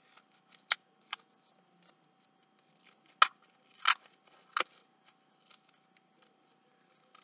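Scissors snipping through paper and card: five sharp cuts, two about a second in and three more between about three and five seconds in, with faint papery ticks between them.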